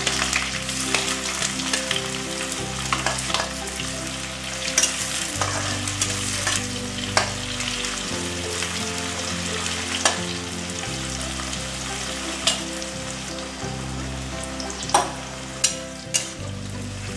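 Sliced onions sizzling in hot oil in a kadai, stirred with a metal spatula that scrapes and clicks against the pan now and then, several times near the end.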